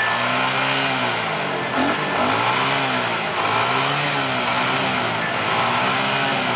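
Vintage Japanese motorcycle engine being revved, its pitch rising and falling about four times.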